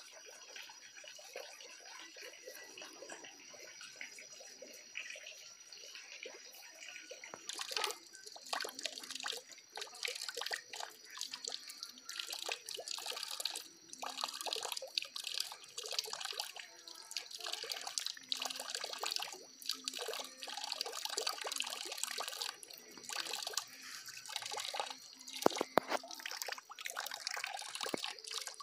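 Muscovy ducks dabbling and drinking at a water basin: irregular small splashes and drips of water from their bills, starting after a quieter stretch about a quarter of the way in.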